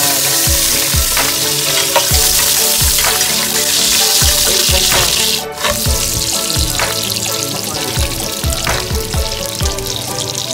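Chopped garlic and onion frying in hot oil in an aluminium pot, sizzling loudly as they are stirred with a spatula. The loud sizzle breaks off suddenly about five and a half seconds in, then carries on more softly.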